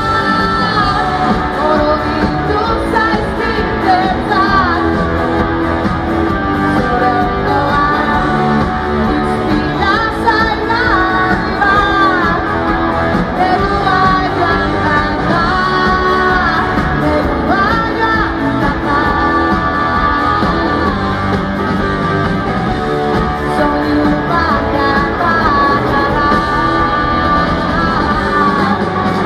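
Basque rock band playing live: electric guitars, bass and drums, with a woman singing lead. It is heard from within the crowd.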